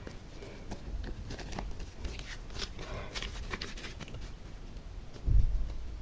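Slime being handled and squeezed, giving many small sticky clicks and crackles, with a low thud about five seconds in.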